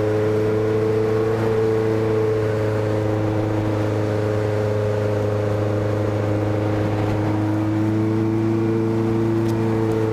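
Honda CB motorcycle's engine and exhaust running at a steady, unhurried cruise, a continuous drone whose pitch sags a little and picks up again near the end.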